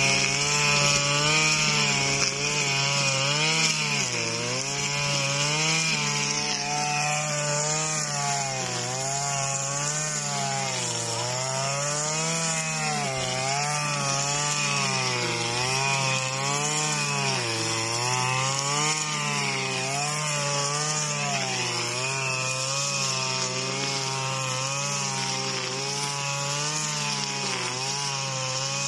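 Stihl FS 235 brush cutter's two-stroke engine running at high revs while its trimmer head cuts tall grass. The engine pitch sags and recovers every couple of seconds as the head swings into the grass and takes load.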